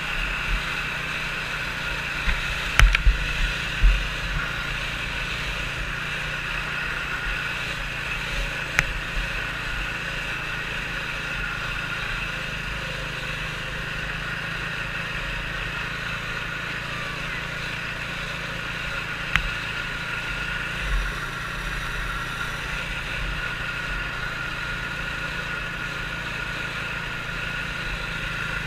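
Small engine of a youth 120-class racing snowmobile running at a steady whine, heard from on board, with low wind buffeting and a few knocks about three seconds in.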